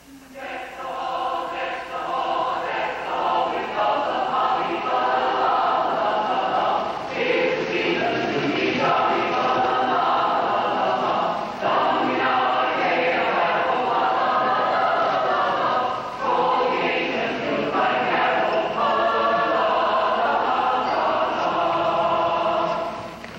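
Madrigal choir singing, phrase after phrase, with the song ending near the end.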